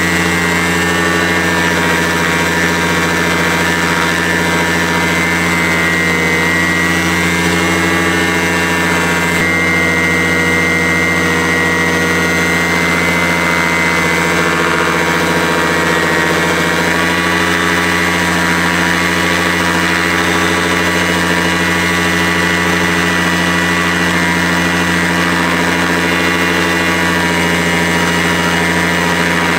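A paramotor's engine and propeller running steadily on a ground test after the motor was fixed. Its pitch shifts slightly about a third of the way in and again a little past halfway.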